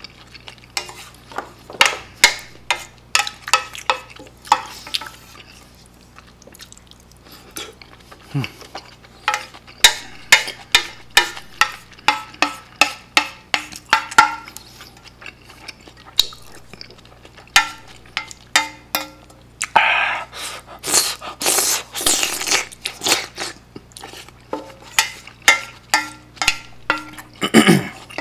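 A spoon clinking and scraping against a stainless steel pan in quick repeated strokes while rice in broth is scooped up and eaten. Slurping of the broth comes in a little after the middle.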